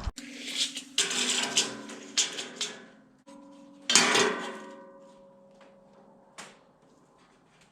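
Steel angle iron clanking and ringing as it is struck: a quick run of sharp metal hits, then one louder hit about four seconds in whose ringing tone fades over a couple of seconds, and a lighter knock near the end.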